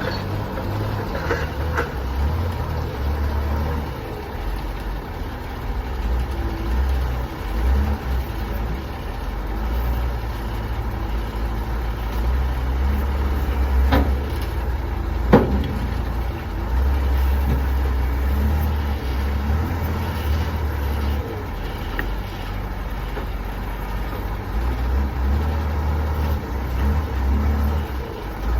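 Truck engine idling with a steady low rumble; two sharp clicks about fourteen and fifteen seconds in.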